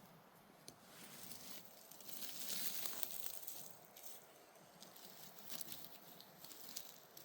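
Soft rustling and crackling of forest-floor litter and plants, with scattered small clicks, swelling louder about two seconds in and easing off a second or so later.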